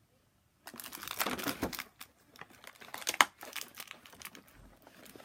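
Action-figure packaging being handled, crinkling and rustling in irregular bursts, with a sharp click about three seconds in.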